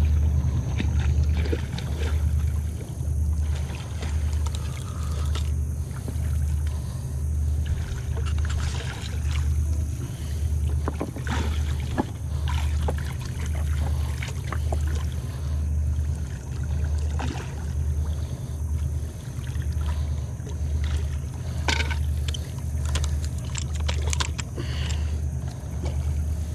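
Low, pulsing throb of a distant diesel towboat engine on the river, beating a little over once a second. Scattered short splashes and clicks come from the hooked catfish thrashing in the shallows.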